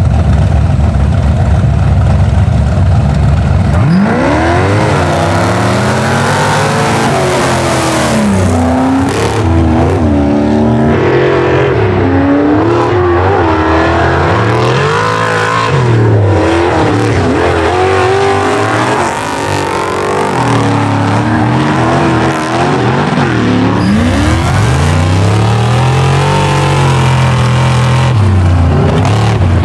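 Off-road race vehicles, a monster buggy and a VW Bug-bodied trophy truck, idling at the start line, then launching about four seconds in. Their engines then rev hard, the pitch climbing and dropping back again and again through the rest of the run.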